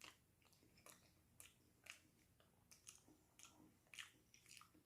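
Faint chewing of a mouthful of pizza: soft, irregular wet mouth clicks a few times a second.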